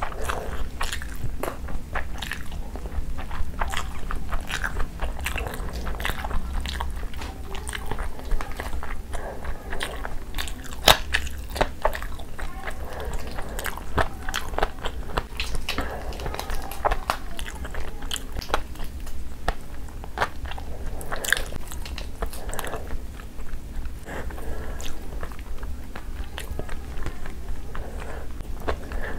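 Close-miked chewing of a full mouthful of rice and chicken, with many short wet mouth clicks scattered throughout. A steady low hum runs underneath.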